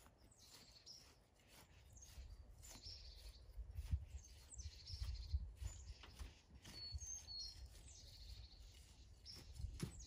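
Birds chirping now and then, over soft scraping and low thuds of a hand tool loosening soil in a raised bed.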